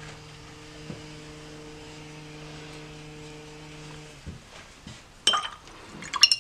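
Hedge trimmer motor running in the background, a steady hum that cuts off about four seconds in. Two short bursts of sharp clinks follow near the end.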